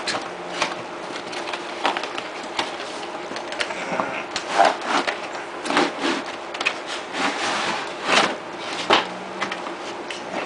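Keyboard-and-mouse retail packaging being handled and opened as the contents are taken out: an irregular run of knocks, scrapes and rustles.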